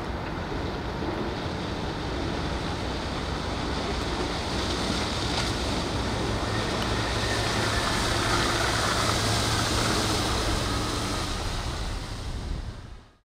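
Steady rush of wind and water with a low hum underneath as the ENVGO NV1 electric hydrofoil boat runs by up on its foils. The sound fades out quickly near the end.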